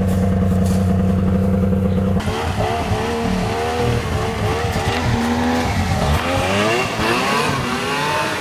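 2004 Yamaha SXV snowmobile's stock three-cylinder two-stroke engine idling steadily, then about two seconds in it revs up and down again and again as the sled pulls away across the snow.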